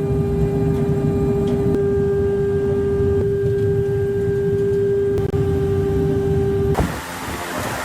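Machinery running with a steady hum at one constant pitch over a low rumble, which cuts off abruptly near the end and gives way to a different noise.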